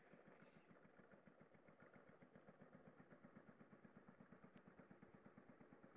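Tohatsu 5 hp outboard motor running, heard faintly as a steady, even pulsing beat.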